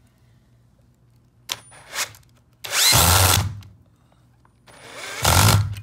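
Cordless drill-driver in hybrid mode driving a long screw into pine in short bursts: two brief blips, then two louder runs of about a second each with a whine.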